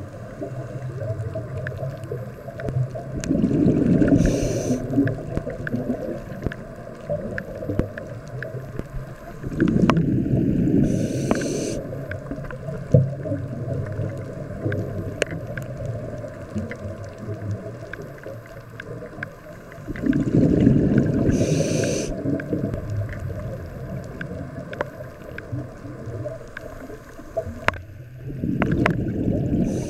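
Scuba diver breathing through a regulator underwater: four loud rushes of exhaled bubbles, about eight seconds apart. A steady low hum and faint clicks fill the gaps between them.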